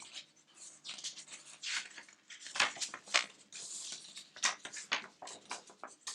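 Paper poster being handled and opened out: irregular rustling and crinkling of paper, with short crackles that come and go.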